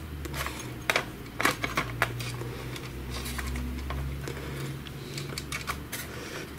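Sharp plastic clicks and light knocks, spaced irregularly, as the gear reducer of a Samsung ML-1210 laser printer is fitted onto the frame. A low steady hum runs underneath.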